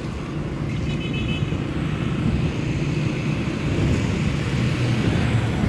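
A motor vehicle's engine running steadily, a low, even rumble.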